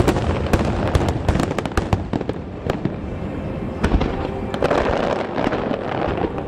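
Large aerial fireworks display: many shells bursting in quick succession, loud bangs overlapping with crackling, the loudest about four seconds in.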